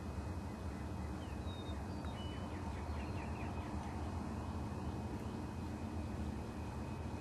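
Birds calling over a steady low rumble, with a few thin high chirps and, about three seconds in, a short rapid rattling call.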